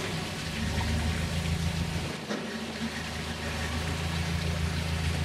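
Narrowboat engine running steadily, with water noise from the hull. The engine note dips briefly about two seconds in.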